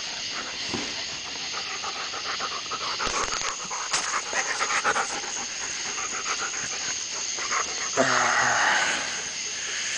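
German Shepherds panting and scuffling during rough play-wrestling, with a loud breathy noise near the end.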